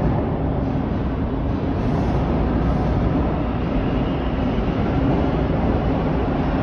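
Bombardier T1 subway train approaching the platform out of the tunnel: a steady rumble of wheels on track. A faint higher whine comes in about two-thirds of the way through.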